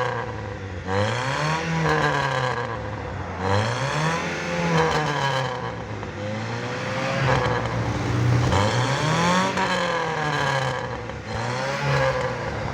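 Chevrolet Chevy's four-cylinder engine revved up and down about six times through its newly fitted exhaust silencer, each rev rising and falling over a second or two. The exhaust has a moderate, slightly raspy tone.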